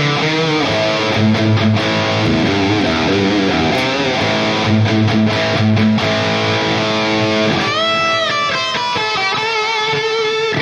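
High-gain distorted electric guitar played through a NuX MG-30 modeling unit on its Marshall DSL amp model, with the pan delay switched on, so the notes repeat. A line of held, overlapping notes, with a few bent notes about eight seconds in.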